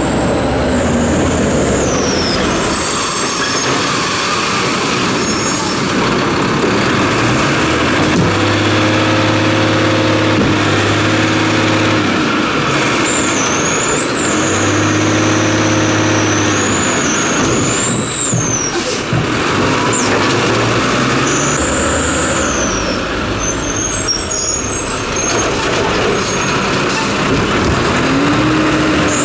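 Labrie Automizer garbage truck's diesel engine revving, twice speeding up and holding steady for about four seconds each, over constant truck running noise. A high, wavering whine comes and goes over it.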